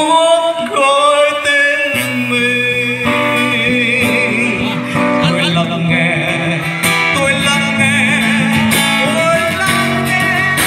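A man singing a held, sweeping melody into a microphone while playing an acoustic guitar, its low notes coming in about two seconds in.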